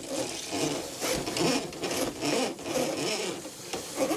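Repeated rubbing and scrubbing strokes, about two or three a second: a mop or rag wiping black drain sludge off the floor.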